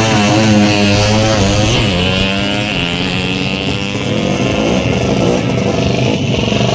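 Drag racing motorcycle accelerating flat out down the strip, its engine pitch climbing and then dropping back at each of several gear changes.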